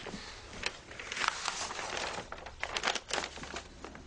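Paper and cardboard rustling and crinkling in short, irregular strokes as a string-tied cardboard parcel is unwrapped and its lid opened.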